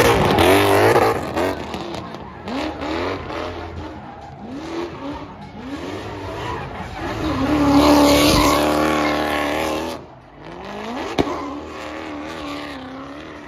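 Drift car engines revving hard and falling back again and again through slides, with tyres squealing. The revs swell loudest near the start and again about eight seconds in, and the sound drops away sharply near ten seconds.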